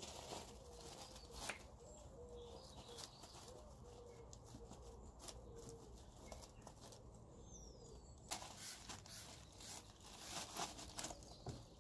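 Faint rustling and swishing of a microfibre cloth wiped by hand over car paintwork, with the strokes coming thicker in the last few seconds.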